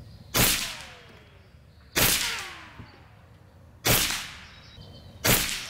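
Skout Epoch .30 PCP air rifle being fired: four sharp reports about two seconds apart, each trailing off over about a second. This is a group shot with the barrel indexed to the 6 o'clock position.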